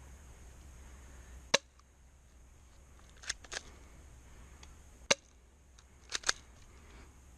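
Airsoft gun firing single shots: six sharp snaps, the loudest about a second and a half in, then a pair, a single one and a close pair spaced over the next five seconds.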